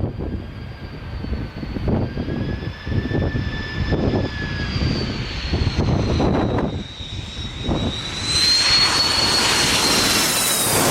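Jet airliner on landing approach: a high engine whine over uneven gusts of wind on the microphone, swelling into a louder jet rush from about eight seconds in as the aircraft passes close.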